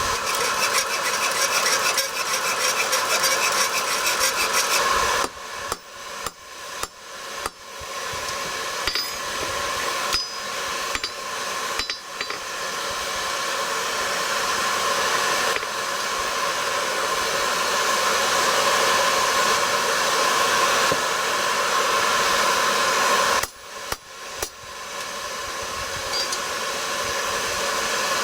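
Hand hammer striking steel on an anvil: a run of about a dozen blows between roughly five and twelve seconds in, then a few more near the end. A steady hiss from the forge's blower runs underneath.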